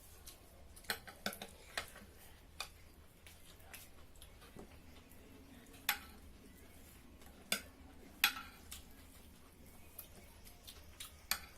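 Spoons and cutlery clinking and scraping against plates and bowls during a meal. Scattered sharp clinks, a few louder ones in the second half.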